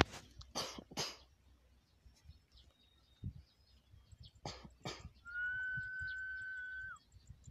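Short rushes of breath-like noise, twice in the first second and twice again about halfway through, with faint thin chirps between them. Then a single steady high whistle is held for about two seconds and dips at the very end.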